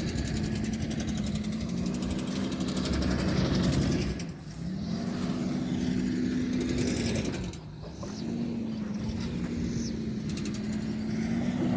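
A motor vehicle's engine running under way. Its note drops away and climbs back up twice, about four and eight seconds in.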